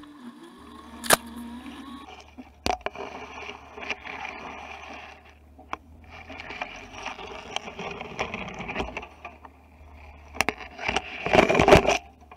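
Branches and leaves scraping and brushing along the body of a Mitsubishi Pajero as it pushes through dense undergrowth, with a few sharp clicks, over the low steady hum of its engine. The scraping is loudest near the end.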